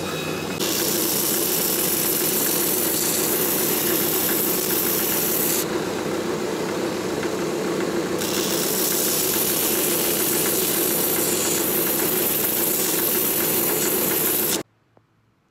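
Shoe finishing machine running, its spinning sanding wheel grinding the edge of a new leather boot sole with a steady, loud rasp. The hiss thins for about two seconds midway. The sound cuts off suddenly near the end.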